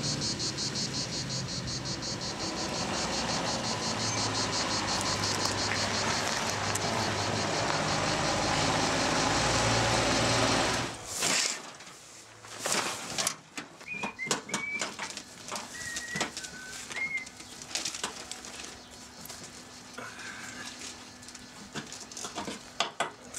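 Cicadas buzzing with a steady fast pulse over a low engine rumble that swells, then stops abruptly about halfway. After that come scattered clicks and knocks from a truck's tarp and ratchet strap being handled, with a few short bird chirps.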